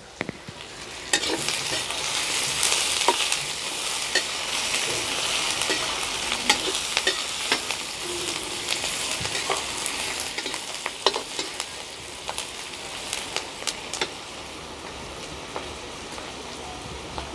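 Sliced onions frying in hot oil in a kadhai, sizzling steadily, with a spoon stirring and clicking against the pan. The sizzle grows louder about a second in and eases over the second half.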